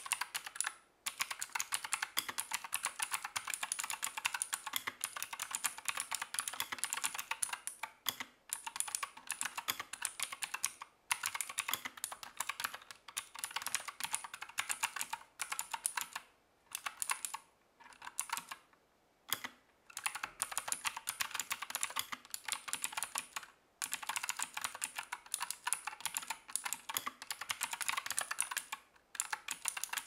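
Continuous fast typing on a Royal Kludge RK G68 mechanical keyboard with clicky Gateron Blue switches: a dense run of sharp key clicks, broken by several short pauses, the longest a little past the middle.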